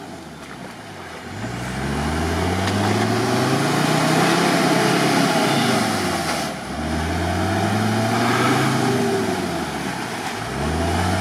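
Off-road 4x4's engine revving hard under load as it claws through deep mud on a diagonal, its rear differential lock not working: the revs climb and hold, fall back about six seconds in, climb again, then drop and pick up once more near the end.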